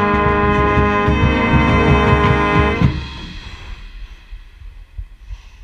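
Marching band brass holding a loud sustained chord over pounding drums, with a baritone horn close by. The band cuts off sharply about three seconds in, leaving only faint background noise.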